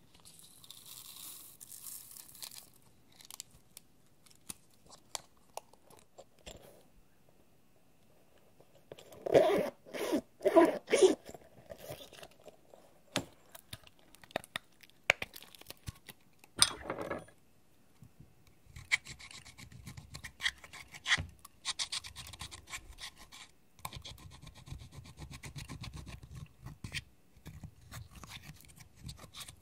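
Plastic makeup packaging being handled, rubbed and clicked open, with a cluster of loud sharp clicks and taps about a third of the way in. In the last third, a metal-tipped tool scratches and scrapes pressed eyeshadow out of the palette pans.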